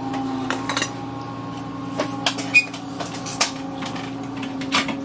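Scattered light clicks and taps of wires being handled in a metal fluorescent light fixture, the sharpest about two and a half seconds in, over a steady hum.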